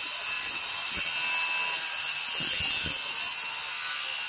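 A power tool running steadily with a high whine, with a few faint knocks.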